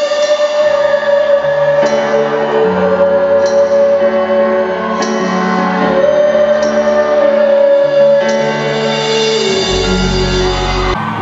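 Live band music: sustained chords with a long held note, the bass stepping through slow changes. A deep bass note comes in near the end, then the music cuts off abruptly.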